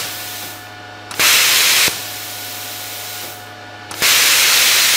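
Cornwell MMWP375DVI plasma cutter torch fired in short presses: twice, a click is followed by a loud rush of compressed air through the torch with the pilot arc lit, the first press lasting under a second, the second starting about four seconds in. Between presses a quieter hiss of air keeps flowing and slowly fades, over a low steady hum.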